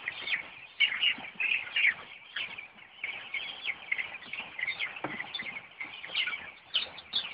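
A large flock of young chicks peeping, many short high cheeps overlapping without a break.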